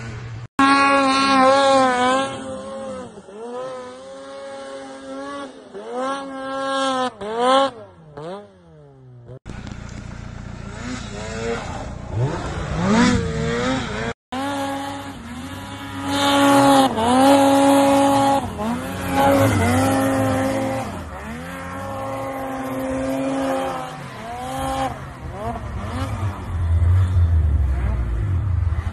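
Snowmobile engines revving hard and easing off again and again, each rev a high whine that holds, then rises and falls. The sound breaks off sharply and starts afresh a few times.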